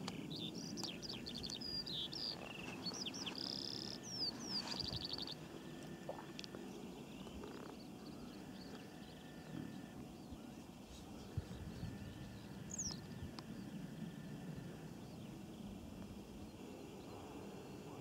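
A small bird singing a quick run of high chirps and trills for the first five seconds, with one more brief call about two-thirds of the way through, over a steady low rumble of open-field background noise.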